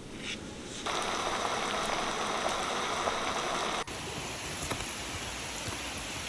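Heavy rain pouring down, heard from inside a trail shelter: a steady, dense hiss that swells up about a second in, with an abrupt edit just before the four-second mark where it carries on at a slightly lower level.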